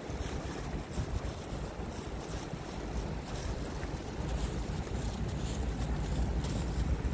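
Wind buffeting the microphone with an uneven low rumble, over the steady hiss of city street traffic; it gets a little louder about halfway through.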